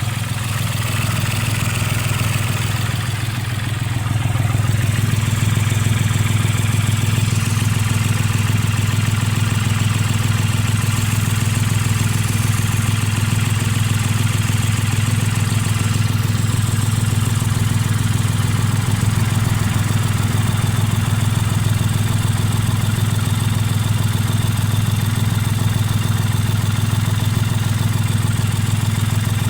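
Hyundai Grand i10's three-cylinder diesel engine idling steadily, a little louder from about five seconds in. The car has a failed turbocharger.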